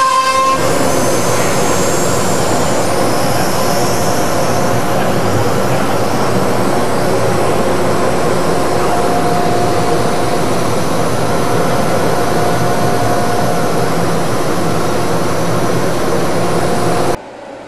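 CNC router spindle's high whine stops about half a second in. It leaves a loud, steady rushing air noise from the router's vacuum equipment, which cuts off abruptly near the end.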